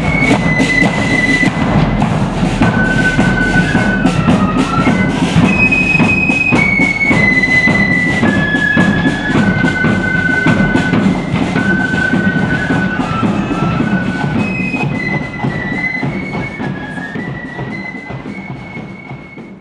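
Marching flute band playing a tune in unison over a steady beat of bass drum and side drums. The sound fades over the last few seconds as the band marches away.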